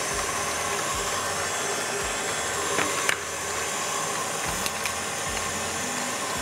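Electric stand mixer running steadily as it beats butter and sugar, with a few light clicks.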